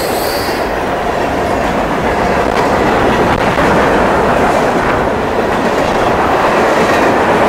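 Freight train of boxcars, hoppers and tank cars passing close at speed: a loud, steady rumble of steel wheels on rail with clickety-clack from the wheels over the rail joints.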